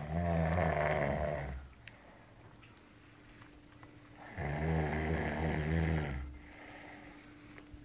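A sleeping man snoring heavily: two long snores about four seconds apart, each lasting nearly two seconds.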